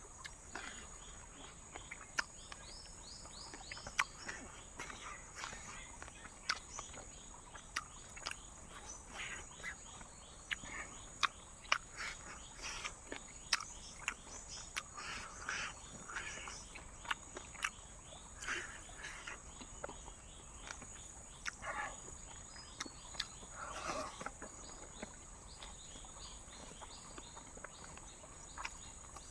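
Steady high-pitched drone of night insects, with many scattered sharp clicks and crackles over it.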